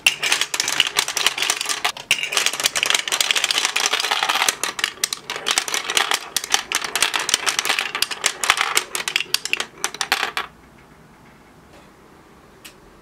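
Many glass marbles rolling and clattering down a plastic marble-run board, a dense rapid clicking that stops suddenly about ten and a half seconds in. One faint click comes near the end.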